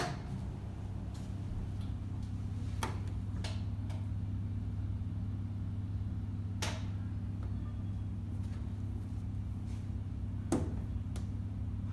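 LG Fuzzy Logic top-load washing machine spinning after its motor was replaced, with a steady low hum that builds slightly at the start and a few sharp clicks over it. It runs quietly, the loud-noise fault cured.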